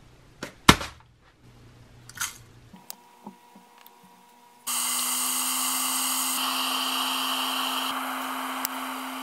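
A few sharp clicks and knocks in the first few seconds, the loudest about a second in. Then, starting abruptly about halfway through, a glass electric kettle heating water gives a steady loud rushing hiss with a low hum, as small bubbles begin to rise on the way to the boil.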